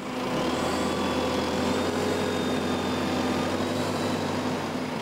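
Reform Metrac H7 X mountain tractor's diesel engine running steadily as the tractor drives, an even hum with a faint high whine above it.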